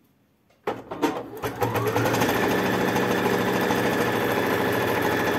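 Electric sewing machine starting about half a second in, speeding up with a rising pitch over the next second, then stitching steadily at speed.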